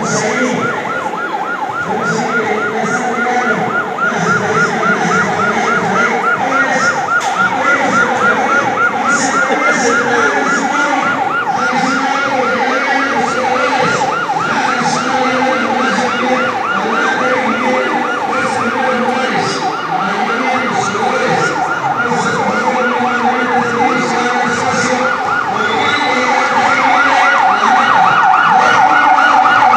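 Ambulance's electronic siren on a fast yelp, its pitch sweeping rapidly up and down several times a second, growing louder near the end as it approaches.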